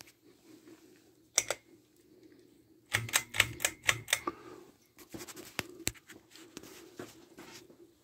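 1997 Harbor Breeze Cheshire ceiling fan running, its motor a faint steady hum. Over it come sharp irregular clicks and taps, one about a second and a half in, then a dense cluster about three seconds in and more scattered ones after.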